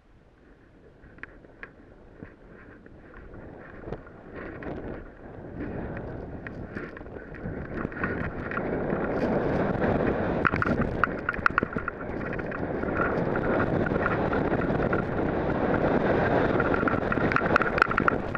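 Wind rushing over the rider's camera microphone, rising steadily as a snowboard picks up speed downhill, with the board scraping and chattering over rough, tracked snow in many short clicks and scrapes.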